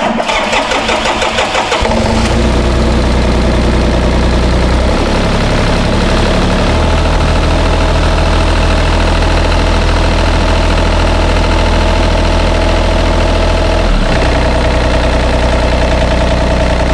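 The John Deere 35D excavator's 1.6-litre diesel engine turns over on the starter for about two seconds, catches, and settles into a steady run, faltering briefly about fourteen seconds in. It is being restarted after a fuel filter change, with air drawn into the fuel system.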